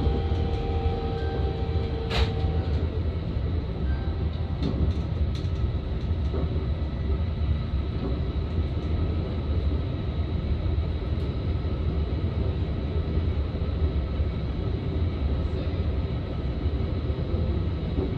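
Electric commuter train running along the line, heard from inside the train: a steady low rumble of wheels on rails. A steady tone fades out in the first couple of seconds, and there is a single click about two seconds in.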